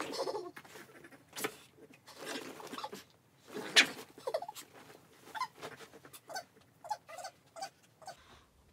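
Irregular rustling and scuffling as a large plush faux-fur dog bed is handled and turned over while two small dogs move around on it, with one sharp snap about four seconds in.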